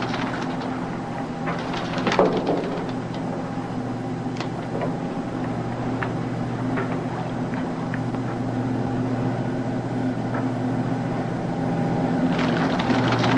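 Steady low drone of a patrol boat's machinery, with a few light knocks and clanks on deck. A louder knock comes about two seconds in, and a short rush of noise comes near the end.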